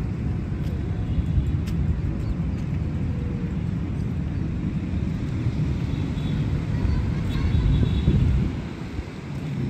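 Outdoor city-park ambience: a steady low rumble of distant traffic. Faint bird calls come through about six to eight seconds in.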